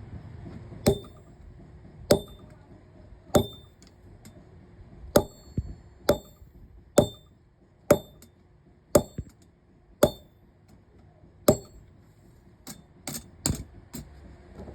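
Blacksmith's hammer striking steel on an anvil, each blow ringing briefly. The blows come slowly, about one a second, then a quicker run of lighter taps near the end.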